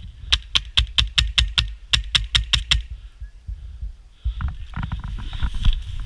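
Airsoft gun firing a quick string of about a dozen shots, about five a second with one short break. Scattered clicks over a low rumble follow near the end.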